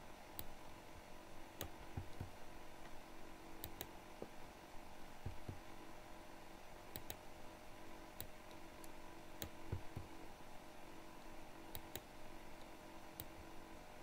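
Faint, irregular clicks of a computer mouse, about a dozen scattered through, over a low steady hum.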